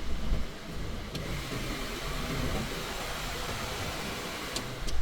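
Toyota Vitz running with its newly recharged air conditioning switched on: a steady running noise with a few faint clicks.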